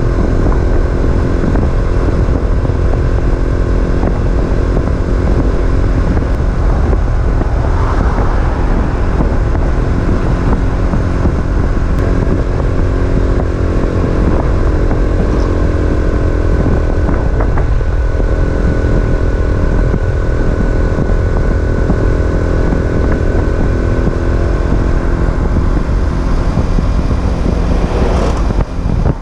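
Racer Alpha RC50 moped's small single-cylinder four-stroke engine running at a steady cruise under way, with heavy wind buffeting on the microphone. The engine is still being run in.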